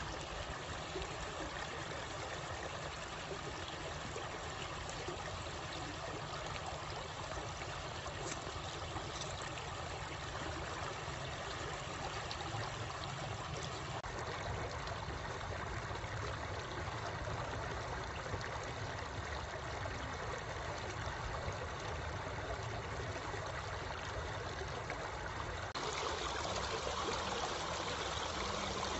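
Shallow stream rushing over rocks: a steady wash of running water, shifting slightly in tone twice.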